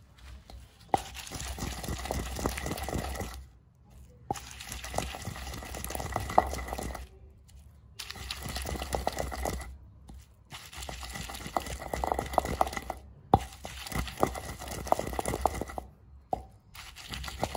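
Pestle grinding and rubbing a wet paste of dry fruits, saffron and rose petals in a mortar. A rough scraping with many small sharp knocks comes in stretches of a few seconds, broken by short pauses.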